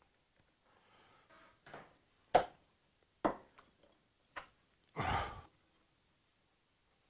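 Spanner work on a motorcycle's chain adjuster bolt: a few separate sharp metallic clicks and knocks as the tool is handled and fitted, the loudest about two and a half seconds in, then a duller half-second thump about five seconds in.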